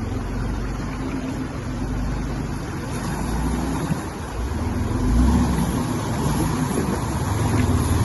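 Toyota Land Cruiser 80 series engine running while driving, with a low rumble and noise that swell to a louder surge about five seconds in.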